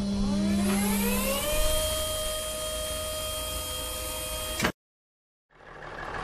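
Cartoon sound effect of a crane's motor hoisting a load: a whine that rises in pitch for about a second and a half, then holds steady and cuts off suddenly. After a brief gap, a truck engine fades in near the end.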